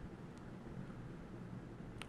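Steady low background room noise during a pause in typing on a mechanical keyboard, with one faint click about half a second in.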